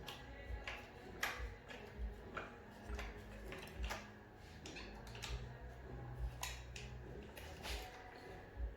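Irregular light clicks and taps of small hardware and hand tools being handled while fitting an exhaust mount on a radio-controlled truck, about one or two a second.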